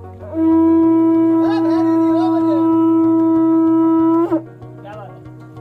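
Conch shell (shankh) blown in one long, steady note of about four seconds that cuts off with a brief flick at the end.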